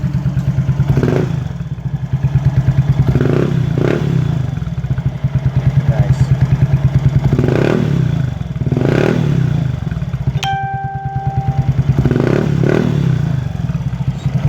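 Yamaha Mio scooter's single-cylinder four-stroke engine idling with a pulsing exhaust note through a newly fitted Organ Sport v5 aftermarket pipe, blipped about seven times, each a short rise in revs. A short steady beep-like tone sounds once, about two-thirds of the way through.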